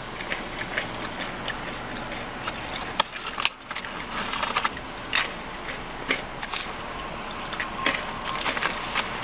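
Crunchy Cajun-style fried pecans being chewed close to the microphone: irregular crunching clicks, with a plastic snack bag crinkling as it is handled.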